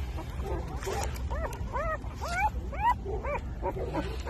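Newborn puppies whimpering and crying: a quick run of short, high squeals that rise and fall in pitch, the distress calls of pups left without their mother.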